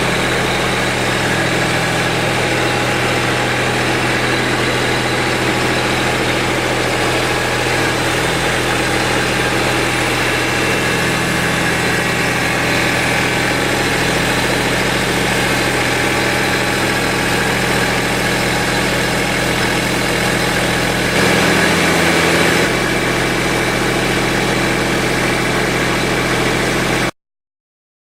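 A motor running steadily with a constant low hum, a little louder for a second or so about 21 seconds in, then cutting off abruptly near the end.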